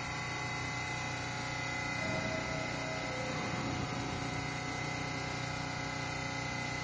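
Steady hum of a New York City subway car standing at the platform with its doors open, its ventilation and electrical equipment running, with a constant high whine over it.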